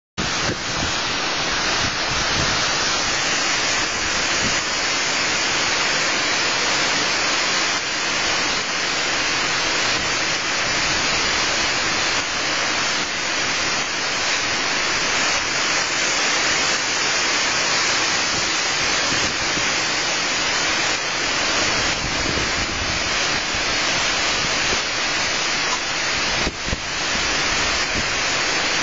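Hurricane Sandy's wind blowing through a large leafy tree: a steady, loud rush of noise, with gusts buffeting the microphone.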